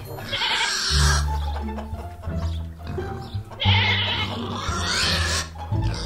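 Background music with a repeating low bass line, its notes changing about once a second.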